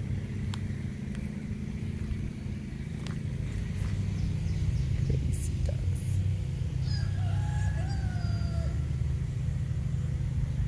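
A rooster crows once, a single call of about two seconds that starts about seven seconds in and dips in pitch at its end, over a steady low rumble.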